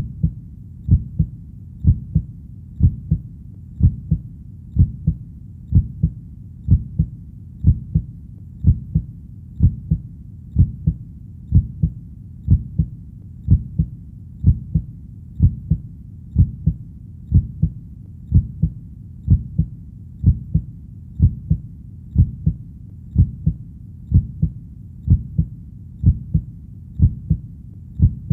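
Heartbeat sound: steady, low-pitched double thumps (lub-dub) repeating about once a second in an even rhythm.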